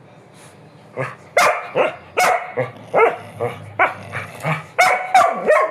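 Pet dog barking insistently in a rapid run of about a dozen short, sharp barks, starting about a second in: a dog demanding to be taken out for a walk.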